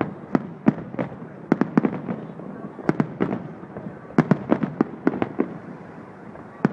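Aerial firework shells bursting in a fast, irregular volley of sharp bangs that come in clusters and thin out near the end.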